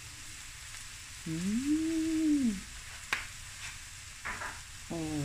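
Boneless chicken thighs sizzling steadily in a stainless steel frying pan. Over the sizzle a woman sneezes: a drawn-out voiced intake about a second in, rising then falling in pitch, then one sharp burst, set off by black pepper.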